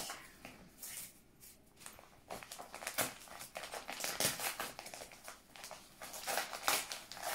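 Gift-wrapping paper rustling and crinkling in irregular bursts as a small wrapped package is unwrapped by hand, quieter for the first couple of seconds and busier after.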